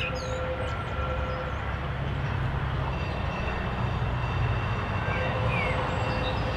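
Electric tram approaching unseen along the line, a low rumble growing slowly louder.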